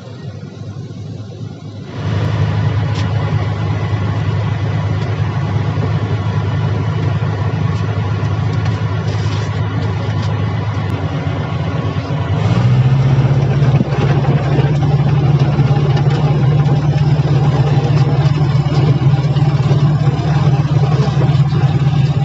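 Heavy-equipment diesel engine running steadily. It gets louder about two seconds in, then revs up to a higher, louder steady pitch about twelve seconds in.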